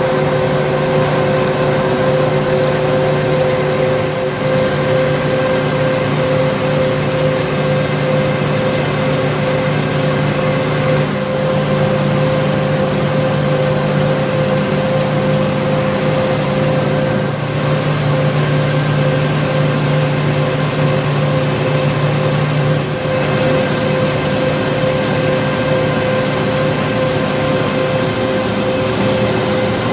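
John Deere 9996 cotton picker running steadily while picking cotton, a constant machine drone with a steady held tone over it.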